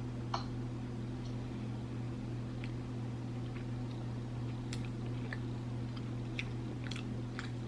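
Faint, scattered small clicks and mouth sounds of someone chewing a soft cookie over a steady low hum.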